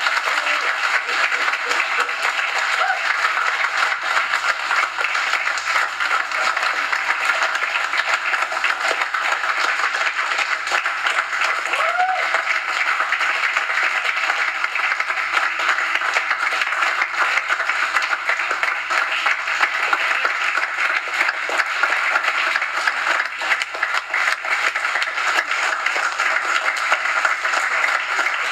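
A group of people clapping and applauding steadily, with one short shout about twelve seconds in.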